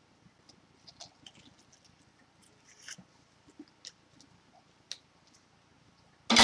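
Faint, scattered rustles and clicks of a synthetic wig and a bit of paper being handled at the head, then one loud, sudden thump-like rustle near the end.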